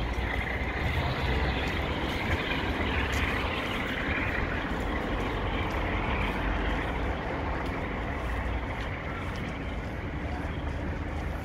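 Class 47 diesel locomotive's Sulzer V12 engine working hard under power as it pushes the train away, a steady heavy diesel drone that fades slowly as it recedes.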